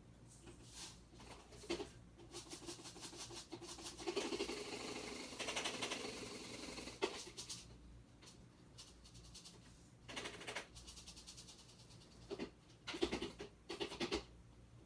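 Dry ingredients and a container being handled: rustling and rattling, with a denser run of rattling about four to seven seconds in and a cluster of knocks near the end.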